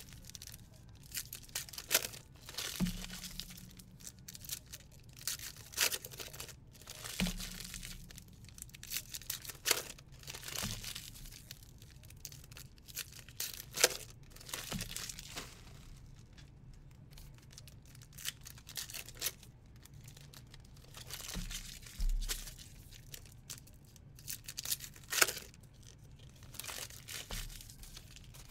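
Trading-card packs being torn open and their wrappers crinkled, with the cards inside handled and set down: a string of short tearing and rustling noises, with a few soft knocks on the table.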